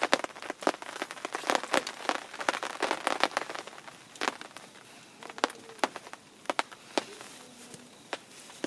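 Wood fire crackling, with sharp, irregular pops that come thick for the first few seconds and then thin out.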